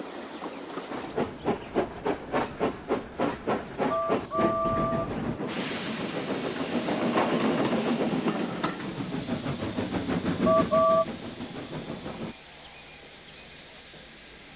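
Steam locomotive chuffing at about three beats a second. Its two-note steam whistle gives a short toot and then a longer one, and steam hisses loudly. Two more short whistle toots come near the end, before the sound drops away suddenly.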